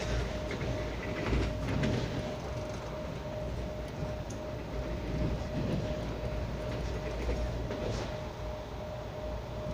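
Passenger train running along the line, heard from inside the coach: a steady low rumble of wheels on rail with a steady hum, and scattered clicks in the first couple of seconds and again near the end.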